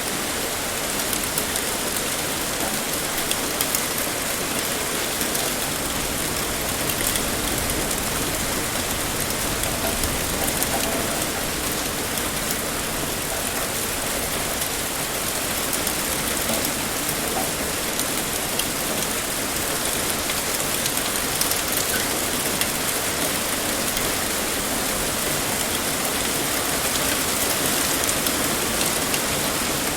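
Heavy rain pouring down steadily, a dense even hiss with the fine patter of many drops hitting a surface.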